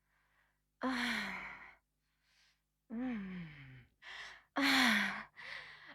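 A woman breathing heavily: a series of about five voiced sighs and gasps with short pauses between them. Several fall in pitch, and the loudest comes near the end.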